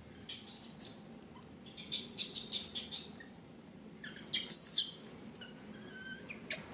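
Macaques squeaking: quick runs of short, high-pitched squeaks, with one louder, shrill squeal that sweeps up and back down about four and a half seconds in, and a few faint chirps near the end.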